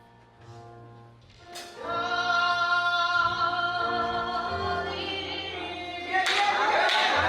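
Music with singing: soft sustained accompaniment notes, then a loud sung line comes in about two seconds in and grows fuller near the end, in a gospel style.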